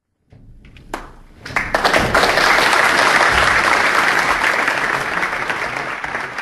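Audience applauding: a few scattered claps break the silence, then full, dense applause swells in about a second and a half in and keeps going.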